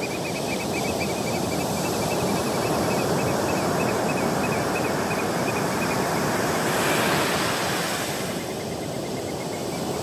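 Recorded nature sound: a steady rushing noise, with a quieter rapid high chirping over it that pauses briefly past the middle.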